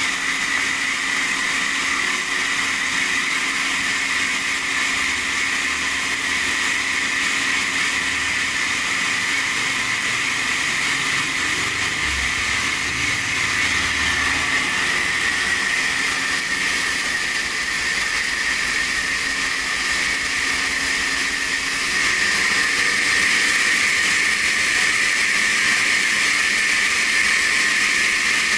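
Sawmill saw cutting a sheesham log: a steady high-pitched running noise with a low hum underneath, getting a little louder about three-quarters of the way through.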